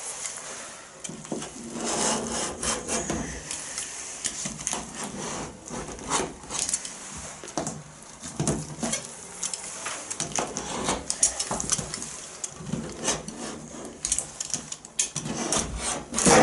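A blade sawing and slicing through the tough rubber window seal of a classic Mini's rear window, in uneven scraping strokes with occasional sharp clicks.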